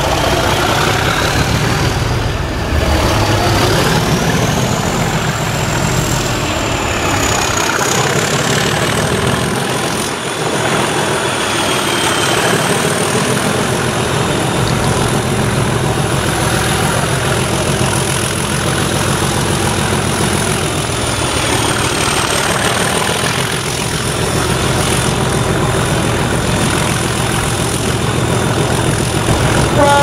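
Class 37 diesel locomotive 37419's English Electric 12CSVT V12 engine working hard under power as it hauls the train away, heard from an open coach window. Its turbocharger whistle climbs steadily in pitch over the first ten seconds, then holds high.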